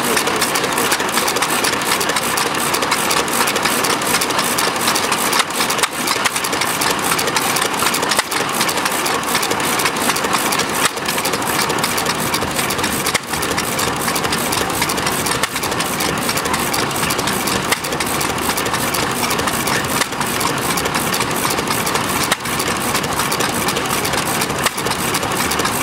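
Massey Harris 3 hp hit-and-miss stationary engine running, with an even, rapid beat of firing and mechanical clatter.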